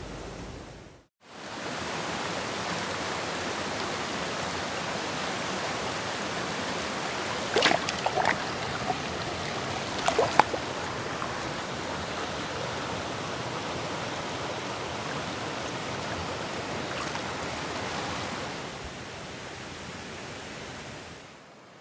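Mountain stream water rushing steadily over rocks. A few short, sharp sounds cut through it around eight and ten seconds in, and the rush grows quieter near the end.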